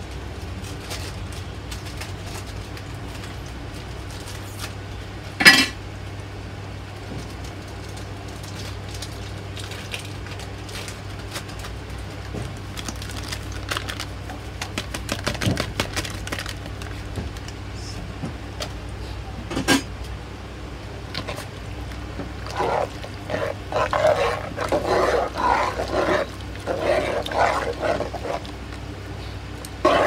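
Cooking in an aluminium pot over a steady low hum: a sharp clink about five seconds in, some clattering in the middle and another clink later on. In the last third, a run of short voice-like calls, like an animal's.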